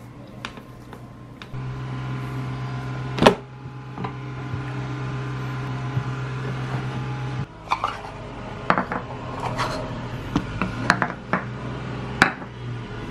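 Food processor motor running with a steady hum, with one sharp knock during it; the hum stops about halfway through. Several short knocks and clacks follow as bowls are handled and set down on a wooden table.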